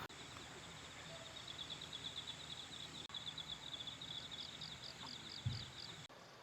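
Faint insects chirping outdoors: a steady run of rapid, evenly spaced high chirps, joined for about a second by a second, higher chirping series. A single soft low thump comes about five and a half seconds in, and the sound cuts off just after.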